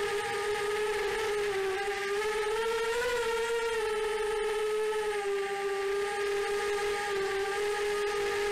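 Small FPV racing quadcopter's brushless motors and 4-inch DAL 4045 props whining steadily in flight, the pitch rising a little about three seconds in, then settling back.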